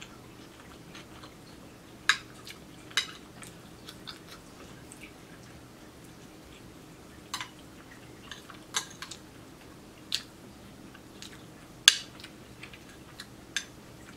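Metal fork and spoon clinking and scraping against a ceramic plate as food is scooped up: about seven sharp, short clinks at irregular intervals, with soft chewing between.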